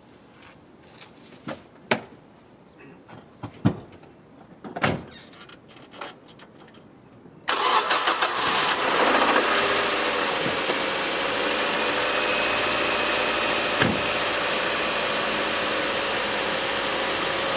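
A few sharp clicks and knocks, then about seven and a half seconds in the 2002 Mazda Protege5's engine starts from cold and settles into a steady idle. No belt or bearing squeak is heard on this cold start.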